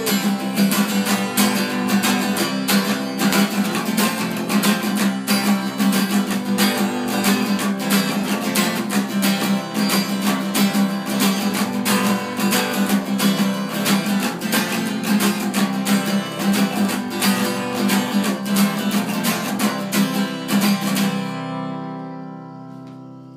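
Acoustic guitar strummed in fast, even strokes, then stopping on a final chord about 21 seconds in that is left ringing and fades away.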